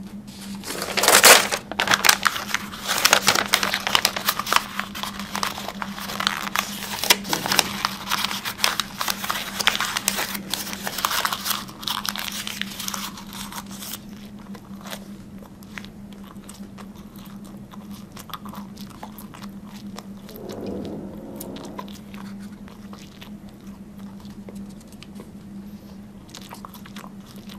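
Close-up chewing and crunching in a person's mouth on something white and crumpled: dense crackling bites with a loud crunch about a second in, thinning out to sparse, quieter mouth clicks after about the midpoint. A steady low hum runs underneath.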